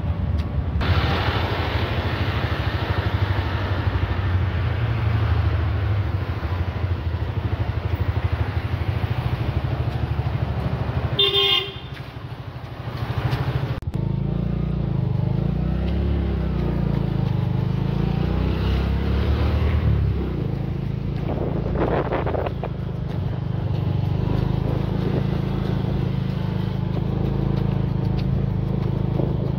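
A motor vehicle engine running, its low rumble shifting in pitch, with a short horn toot about eleven seconds in.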